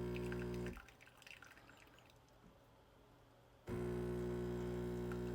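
Nesskoko espresso machine's pump humming steadily while brewing, cutting off under a second in, then a few seconds of faint dripping into the cup before the pump starts up again, for a second shot.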